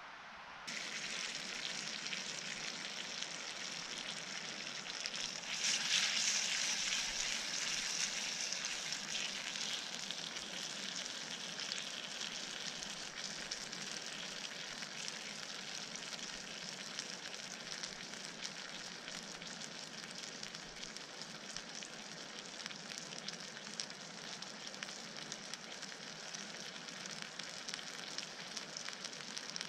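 Pork sizzling in a frying pan on a small camping gas stove: a steady frying hiss that swells louder about six seconds in, then settles and eases off slowly.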